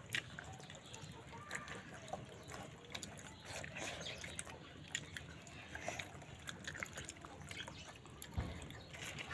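Close-up eating sounds: wet chewing and mouth smacking with many small clicks, and a soft thump near the end.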